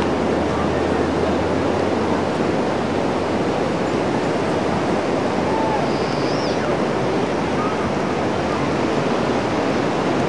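Steady wash of ocean surf breaking on a sandy beach, mixed with wind.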